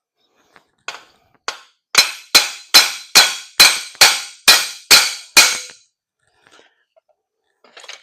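Hammer striking steel: two light taps, then about nine hard ringing blows in quick succession, knocking the foot vise's wedged hook brackets loose from the stand's frame.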